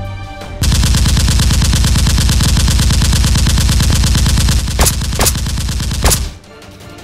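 Sound-effect burst of rapid automatic gunfire that starts about half a second in and cuts off suddenly about six seconds in, with a few louder bangs near the end. Background music is heard before and after it.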